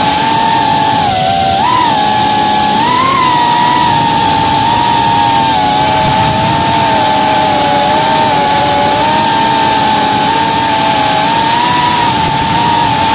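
FPV quadcopter's brushless motors and propellers whining steadily, the pitch wavering up and down with the throttle, with a short dip and rise a second or two in.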